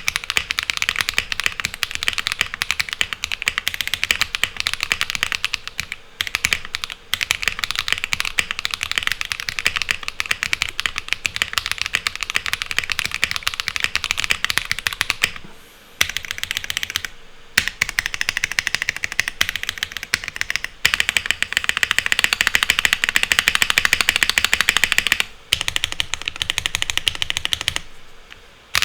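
Fast typing on a Tomo Monokei x TGR 75% mechanical keyboard fitted with Sillyworks Hyacinth V2 linear switches and GMK keycaps. It gives a dense run of high-pitched, clacky keystrokes in long bursts broken by a few short pauses.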